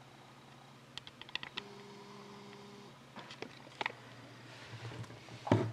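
Faint scattered clicks of a computer keyboard and mouse, in two short clusters, with a brief steady hum partway through and a louder bump near the end.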